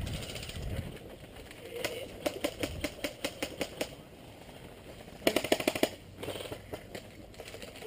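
Airsoft guns firing in automatic bursts: a run of rapid clicking shots about two seconds in, then a louder, faster burst about five seconds in.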